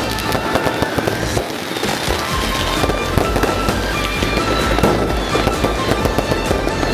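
Fireworks and firecrackers going off without pause: dense crackling and popping, many small bangs overlapping.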